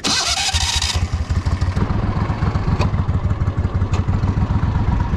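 Air-cooled surface-drive mud motor on a jon boat running steadily with a rapid, even low pulse, after a burst of noise in the first second.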